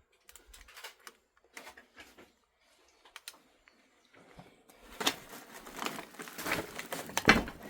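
Objects and papers being handled and rummaged through: scattered light clicks and taps at first, then denser rustling and crackling from about halfway, with a louder knock near the end.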